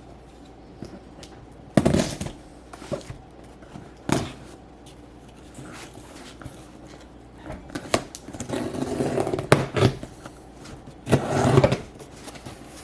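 Cardboard shipping box being opened and unpacked by hand: irregular scrapes, rustles and knocks of tape, flaps and packing, with the longest stretch of rustling about eight to ten seconds in and another burst near the end.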